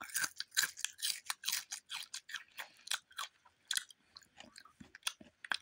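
Someone chewing crunchy chips close to the microphone: a quick, irregular run of crisp crunches, several a second.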